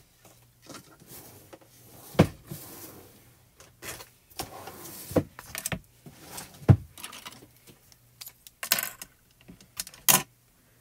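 Hands handling craft supplies on a cutting mat: a series of sharp knocks and taps as items are picked up and set down, with short scraping and rustling between them.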